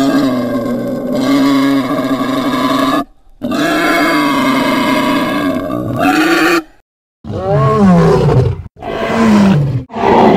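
Made-up monster roar sound effects: two long, loud creature roars of about three seconds each. After a brief pause come three shorter roars, each falling in pitch.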